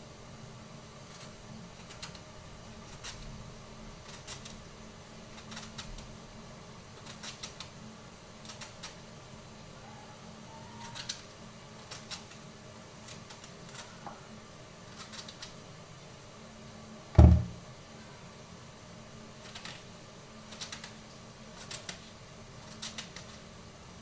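Kitchen knife slicing cabbage on a chopping board: irregular short cutting taps, with one much louder thump about two-thirds of the way through.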